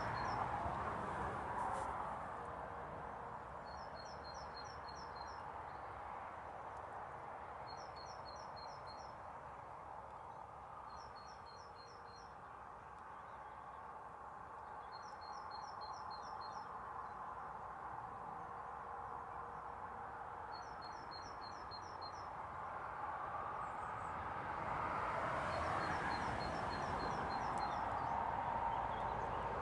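A small songbird singing a short phrase of about five quick, high, evenly spaced notes, repeated every few seconds, over steady outdoor background noise that swells near the end.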